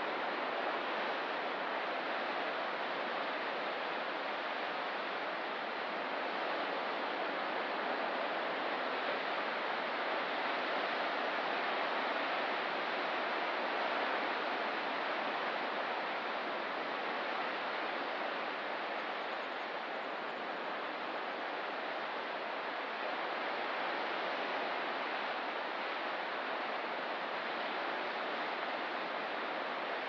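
Distant ocean surf heard as a steady, even wash of noise, with no single wave breaking out above the rest.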